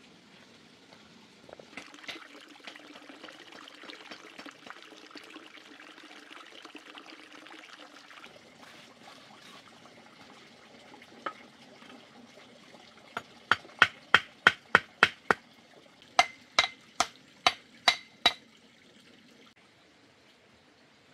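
A noise like pouring or trickling water for several seconds. Then a single knock, followed by two quick runs of loud, sharp strikes: about seven, a pause, then about six, some three a second.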